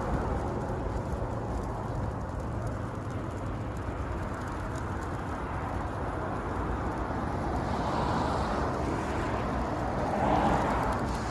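Falling snow outdoors: a steady hiss with a low rumble underneath and faint scattered ticks, like flakes or ice pellets landing.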